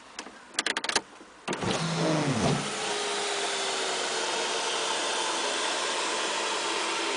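A quick run of clicks, then a VW panoramic sliding sunroof's electric motor and mechanism start about a second and a half in and run steadily as the roof moves, with a faint thin squeak. The roof is one that squeaks and judders in operation despite repeated repair attempts.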